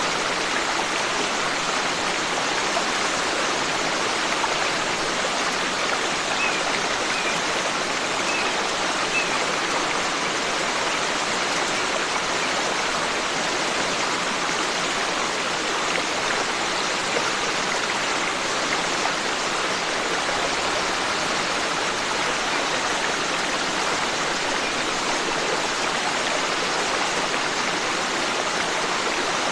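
Forest stream flowing steadily, a constant rushing of water, with a few faint bird chirps about a quarter of the way in.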